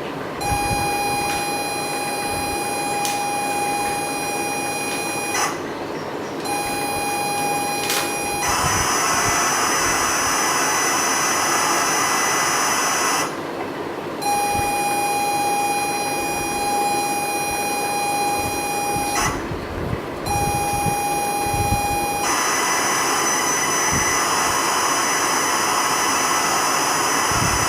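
ZX Spectrum tape-loading signal played from a WAV file into a ZX Spectrum +3e: a steady high pilot tone in blocks broken by short silences, alternating with a harsh screeching hiss of data, the tone-then-data pattern coming twice.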